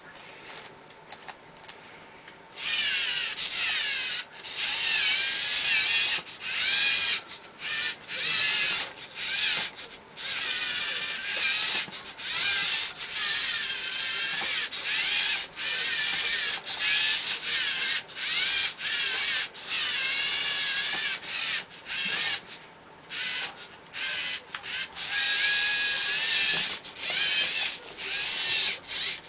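Two Lego Mindstorms NXT drive motors whining through their gears in short bursts, starting and stopping over and over as the skid-steered 4x4 truck is driven. The whine begins about two and a half seconds in, and its pitch wavers up and down with the load.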